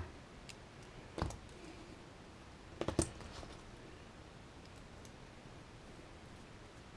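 Two short clicks from a hex driver and small RC link parts being handled on a workbench, one about a second in and a quick double click about three seconds in; otherwise quiet.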